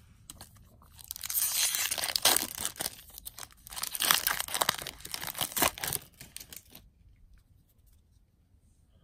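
A Magic: The Gathering Modern Horizons booster pack's foil wrapper being torn open and crinkled by hand. The crackling and tearing lasts about five seconds.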